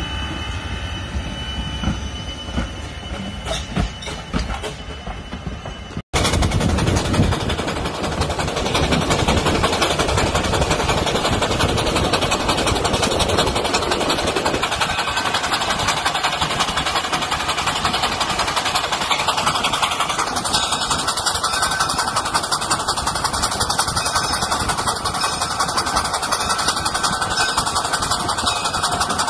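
Narrow-gauge steam locomotive No. 9 moving slowly with steam hissing. About six seconds in the sound cuts to a moving steam train heard from on top of a car, a loud steady rush of wind and running noise.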